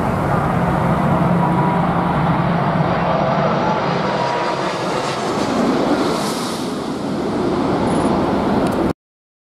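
Jet engines of a twin-engine widebody airliner on low final approach passing close overhead: a loud steady roar with a whine from the engine fans. It cuts off abruptly about nine seconds in.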